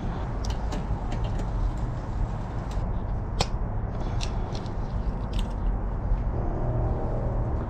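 Bicycle chain clicking and rattling in gloved hands as it is fed through the chain guide: a handful of short, sharp metallic clicks, spaced irregularly, over a steady low rumble.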